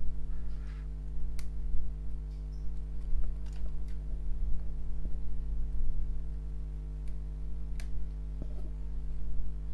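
Side cutters snipping the legs of a cracked triac on a washing machine control board: about five sharp, separate clicks over a steady low hum.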